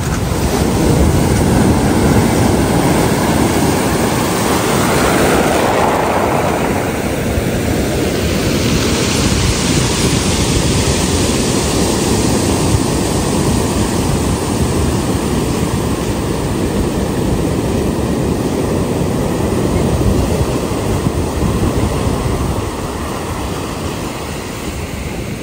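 Pacific surf breaking and washing up over a pebble beach: a loud, continuous rush that swells as each wave breaks, easing a little near the end.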